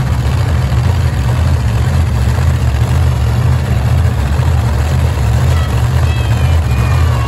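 Monster truck engines idling, a loud, steady, deep rumble with an uneven throb.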